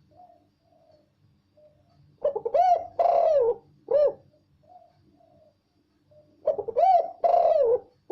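Spotted dove (tekukur) singing: two loud cooing phrases about four seconds apart, each a few notes that swell and fall, ending on a short separate note. Soft low coos come in between.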